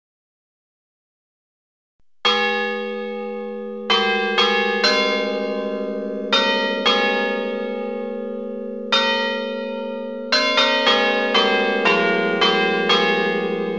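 Church bells of several different pitches struck one after another, each stroke ringing on and overlapping the next. They start about two seconds in and come faster from about ten seconds in, roughly three strokes a second.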